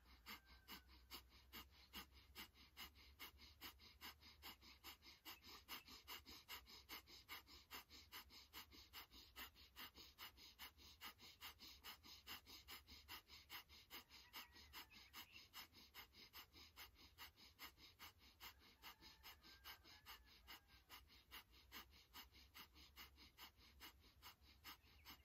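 Faint rapid, rhythmic breathing as a breathwork exercise: short sharp breaths, about three a second, kept up evenly.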